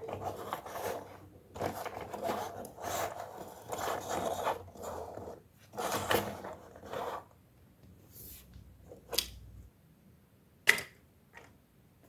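Plastic toy robot being handled: rustling and scraping of plastic parts for about seven seconds, then a few separate sharp clicks, the loudest about ten and a half seconds in.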